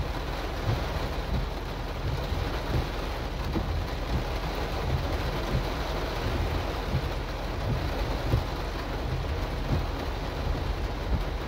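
Heavy rain drumming on the roof and windshield of a stopped car, heard from inside the cabin. Under it runs a steady low rumble with scattered soft thumps.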